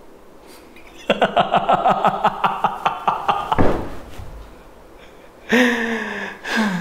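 A man laughing loudly and manically: a fast run of "ha-ha" bursts, about six a second, starting about a second in and lasting some two and a half seconds. After a pause come a long held cry, slightly falling in pitch, and a shorter falling one near the end.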